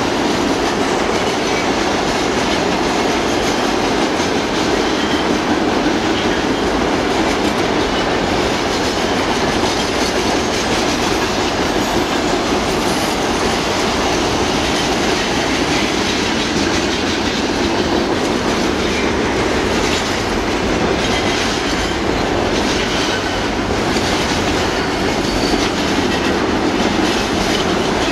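Freight wagons of a container train rolling past, a steady loud rumble of steel wheels on the rails with a running clickety-clack from the wheels.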